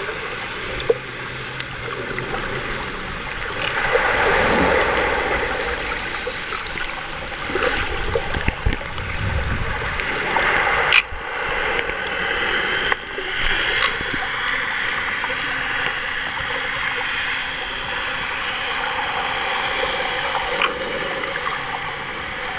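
Muffled water sloshing and splashing around a camera held just under the surface while snorkeling, with two sharp knocks a couple of seconds apart around the middle.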